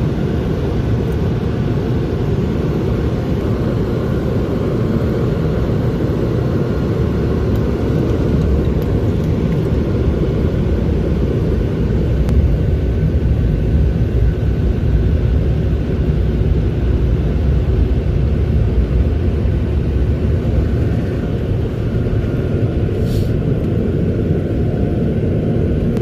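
Automatic car wash dryer blowers blowing air over the car, heard from inside the cabin as a loud, steady rumble of rushing air with a faint steady whine above it.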